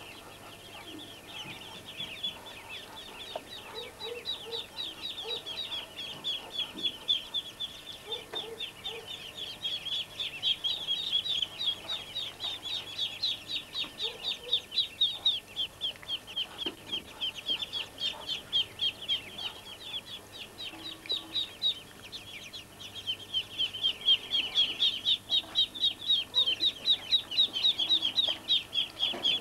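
Muscovy ducklings peeping: a steady run of high, quick, down-slurred peeps, several a second, louder in the last few seconds.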